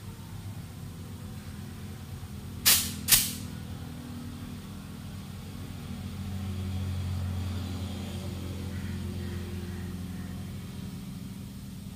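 Small car tyre being inflated on a tyre-changing machine through a clip-on air hose with gauge, over a steady low machine hum. Two short, loud bursts of air come about half a second apart around three seconds in.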